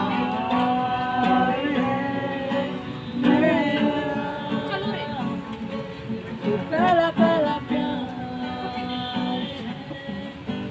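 A man singing while strumming a cutaway acoustic guitar, with long held notes in the vocal line.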